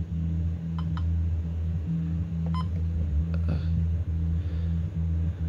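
Short electronic key beeps from a First Alert WX-167 weather alert radio as its menu buttons are pressed: two quick beeps about a second in and another shortly before three seconds, over a steady low hum.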